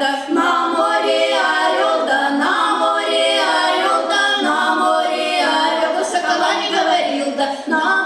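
A women's folk vocal ensemble of five singing a Russian folk song a cappella, several voices together in harmony on held notes.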